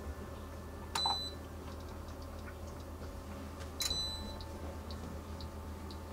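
Balmuda steam toaster being started: a click with a short high electronic beep about a second in, faint dial clicks, and a second click and beep near four seconds in. After that the toaster's timer ticks evenly, about twice a second, as toasting begins.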